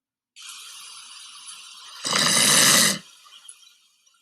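A snore: a long quiet breath in, then a loud snore about two seconds in that lasts about a second and stops abruptly.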